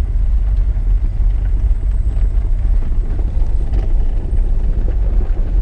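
Pickup truck driving slowly, heard from inside the cab: a steady low engine and road rumble.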